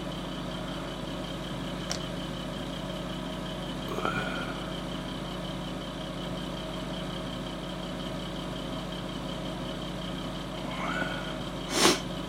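A steady mechanical hum, like a small motor running, goes on throughout. There is a faint click about two seconds in, brief squeaks around four and eleven seconds, and a short, loud rush of noise just before the end.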